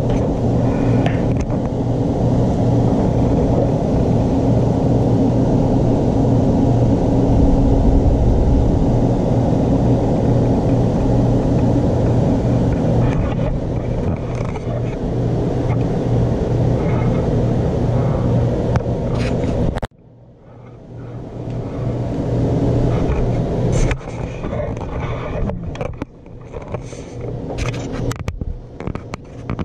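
A steady, low mechanical hum from a running machine that cuts off suddenly about two-thirds of the way through. It is followed by quieter, uneven sounds with scattered clicks and knocks.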